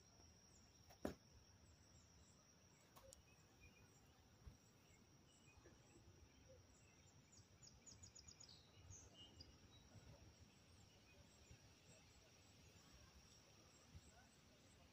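Near silence: faint outdoor pond ambience with a steady, thin, high-pitched insect drone. A short run of quick bird chirps comes about eight seconds in, and a single sharp click about a second in.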